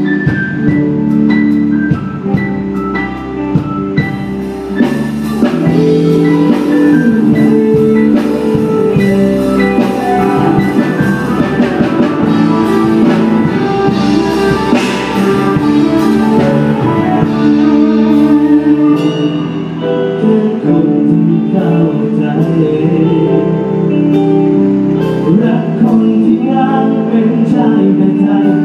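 Live band playing a song through a PA system, with guitar, drums and sustained melodic notes; the sound fills out with higher, brighter parts about four seconds in.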